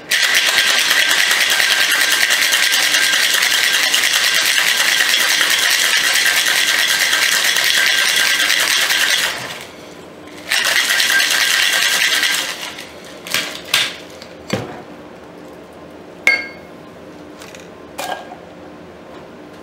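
Ice rattling hard inside a metal-and-glass Boston shaker as a cocktail is shaken vigorously, once for about nine seconds and again for about two, to mix in thick coconut puree. This is followed by a few sharp knocks and clinks as the shaker is handled on the bar.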